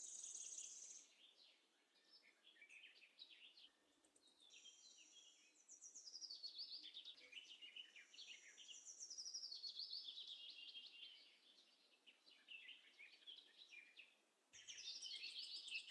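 Faint bird song: several birds chirping and trilling in quick high-pitched phrases, with a short lull shortly before the end.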